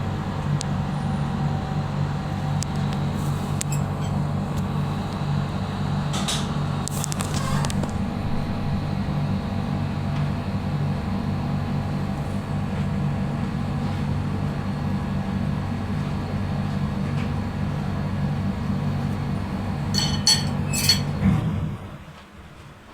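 Steady low machine hum, typical of a refrigerator compressor running, with a few light clinks and clicks. The hum stops about a second before the end.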